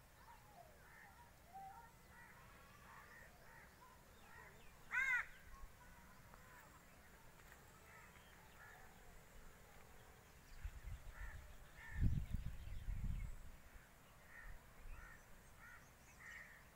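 A crow caws once about five seconds in, over faint scattered bird chirps. Later a low rumble on the microphone comes and goes for about three seconds and is the loudest sound.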